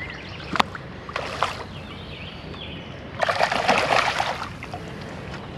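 A hooked trout thrashing and splashing at the surface of a shallow stream for about a second, starting about three seconds in. A sharp click comes near the start and a short splash about a second in.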